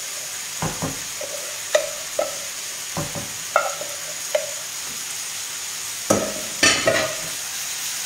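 Food sizzling steadily in a frying pan while a utensil stirs it, knocking against the pan at irregular moments. About six seconds in there is a louder clatter and scrape as the pan itself is moved.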